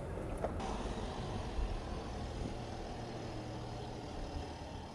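Land Rover Defender running at low speed, a steady low engine drone.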